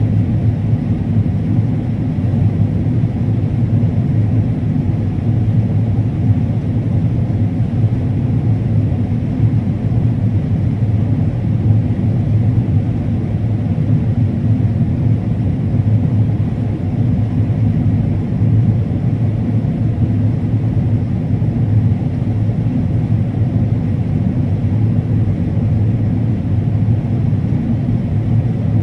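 Combine harvester running steadily while cutting corn: a constant low engine and machine rumble.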